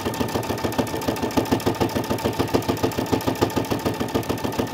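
Brother Innov-is V5 sewing machine running at a steady speed, stitching a seam through cushion fabric with a fast, even beat of needle strokes.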